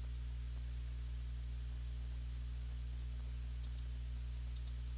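Two computer mouse clicks about a second apart, near the end, each a quick press-and-release. A steady low hum sits underneath throughout.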